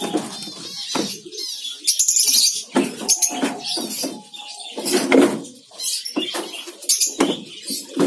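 A colony of lovebirds chirping and calling in shrill, short notes through the whole stretch. Several louder, lower sounds come and go among the calls, the loudest about five seconds in.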